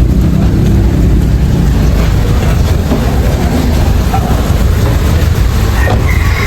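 Mitsubishi Dion's GDI engine running with a steady low rumble that flutters unevenly, the rough running of an engine misfiring badly.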